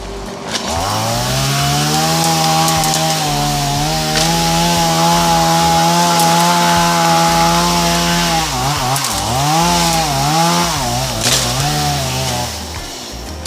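Chainsaw engine revving up, holding a steady high speed, then dipping in pitch and climbing back several times before cutting off near the end.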